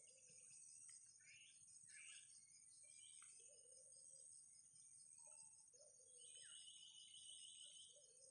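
Faint outdoor ambience: a steady high insect drone with scattered short bird chirps and a few low calls, and a rapid pulsed trill lasting about a second and a half, starting about six seconds in.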